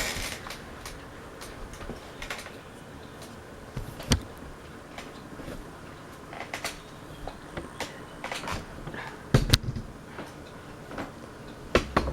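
Quorum hugger ceiling fan running on high, a steady whir under irregular clicks and knocks, the loudest a pair about nine and a half seconds in.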